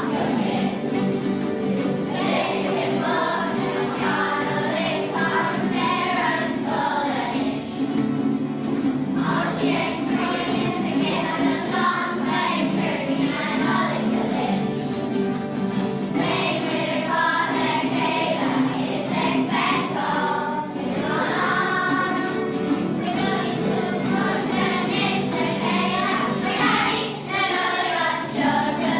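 Children's choir singing a song together, accompanied by strummed acoustic guitars.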